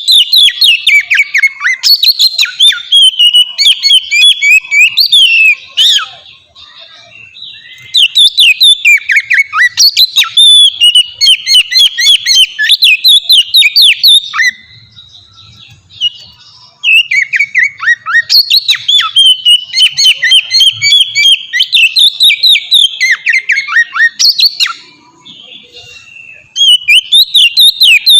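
Oriental magpie-robin (kacer) singing loudly in long bouts of rapid, varied whistled and chattering notes. The bouts are broken by pauses of about two seconds, three times.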